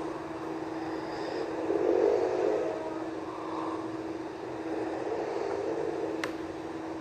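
A sleeping person snoring, slow breaths swelling every few seconds over a steady hum, with a single sharp click near the end.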